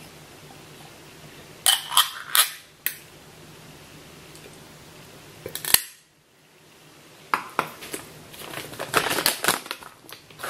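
A plastic food container clicking several times as its lid is handled. In the second half, a plastic snack bag crinkling as it is held and moved.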